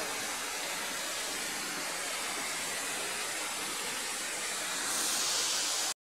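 Waterfall pouring over rock into a boulder stream: a steady rush of falling water, a little louder near the end, then cutting off abruptly.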